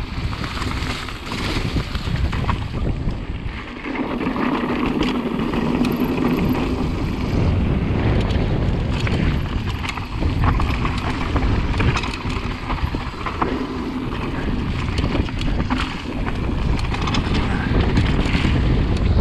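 Wind rushing over the camera microphone while a mountain bike rides fast down a dirt trail, its tyres rumbling over the ground, with frequent rattles and knocks from the bike over bumps.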